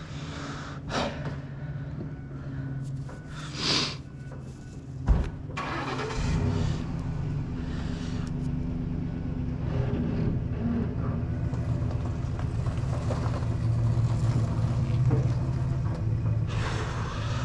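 A vehicle's engine running at low speed while it slowly pulls a flatbed trailer out from under an engine hanging on a hoist. There is a single clunk about five seconds in, and the engine gets somewhat louder after that.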